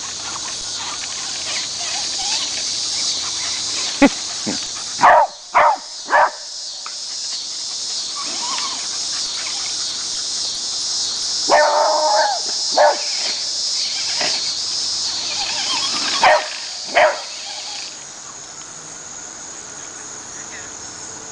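Beagle barking in short bursts: three quick barks about five seconds in, two more around twelve seconds and two near seventeen seconds. Crickets chirp steadily behind, dropping away about eighteen seconds in.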